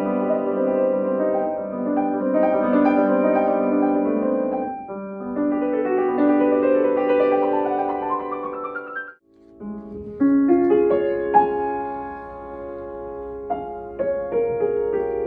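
Fazioli grand piano being played: a flowing passage of chords and runs ending in an upward run, then a brief break about nine seconds in, after which playing resumes with more spaced-out struck notes.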